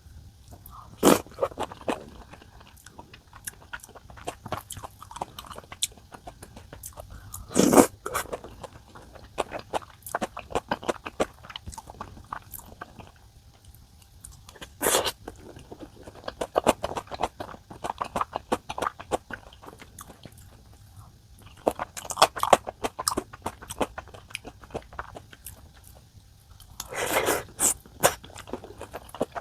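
Close-up eating sounds: a person chewing and biting food, with many small wet clicks and a few louder crunchy bites spread through.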